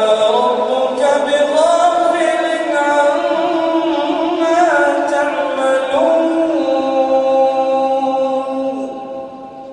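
A man's voice reciting the Quran in slow melodic chant, drawing out long held notes that slide slowly in pitch, fading away near the end.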